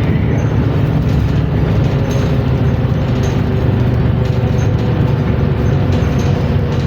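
New Flyer Xcelsior XN60 articulated city bus running, a steady loud low drone with a thin, steady higher whine over it, the whine plausibly being the transmission noise the title calls weird.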